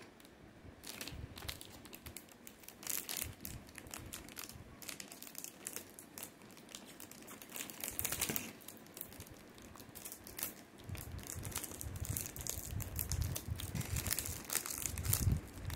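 Plastic inner packet of a Pocky box crinkling and crackling as it is handled and pulled open.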